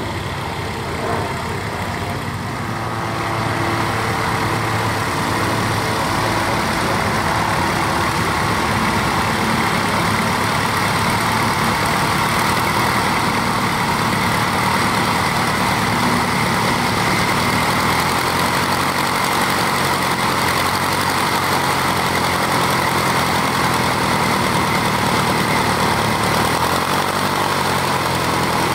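The Ryan STA Special's four-cylinder inverted inline Menasco engine runs at low power on the ground with the propeller turning. It grows louder about three seconds in, then holds steady.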